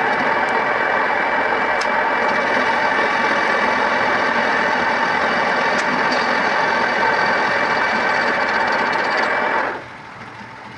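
A power tool working metal runs steadily with a fixed whine over a rushing noise, then cuts off suddenly near the end.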